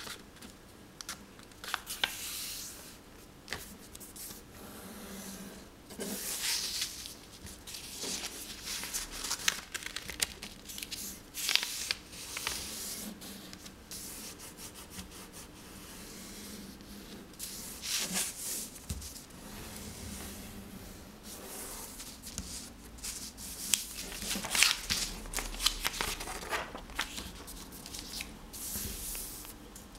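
A sheet of paper being folded by hand into a paper airplane: irregular rustles and scrapes as fingers slide along the sheet and press down the creases.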